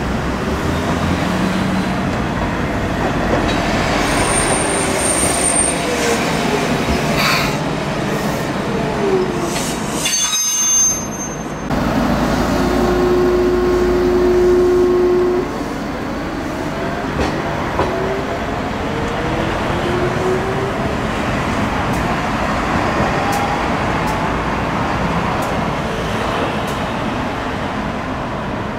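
Toyohashi Railway Mo 780 tram's early Toyo GTO-VVVF inverter and traction motors whining as the car runs in, the pitch gliding downward as it brakes, with a brief high wheel squeal. After a short break the inverter holds one steady tone as the tram starts off, then its whine climbs in pitch in several steps as it accelerates away, over the rumble of the wheels on the rails.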